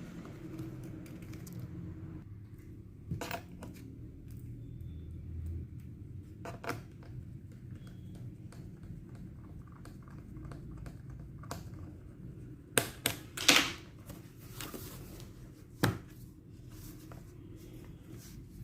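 A few sharp clicks and taps of hands working on the opened laptop and its parts, with a quick cluster of three about two-thirds of the way through, over a low steady hum.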